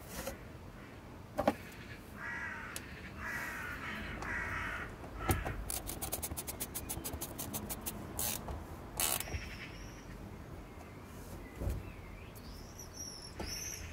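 A bird calls three times, then a socket wrench ratchets with rapid even clicks for about two seconds on a radiator fan shroud bolt, between a few sharp knocks of metal tools.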